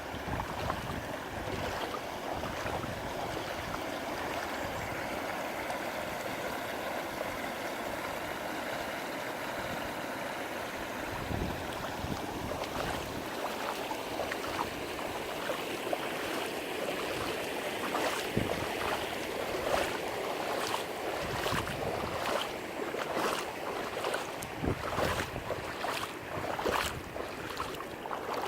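Floodwater rushing steadily through a canal, with some wind on the microphone. In the second half, a run of short soft knocks about a second apart sits over the water.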